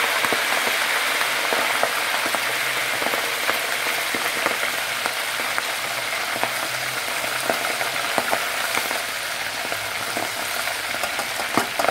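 Braised adobo chicken wings deep-frying in a pot of hot oil: a steady sizzle full of small pops and crackles, easing slightly over time, with a couple of sharper clicks near the end.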